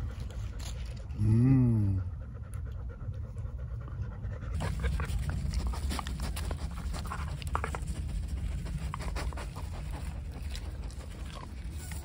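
A husky panting close to the microphone, with scattered small clicks from about four seconds in. A brief pitched voice sound, rising and falling, about a second in.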